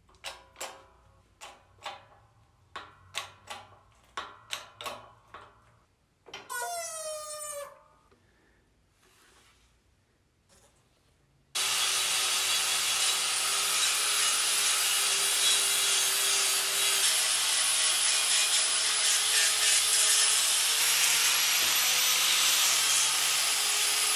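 Sharp clicks about twice a second and a brief squeal as a lower ball joint is pressed into a control arm with a shop press. About halfway through, an angle grinder starts and runs steadily with a high whine, stripping a suspension control arm to bare metal.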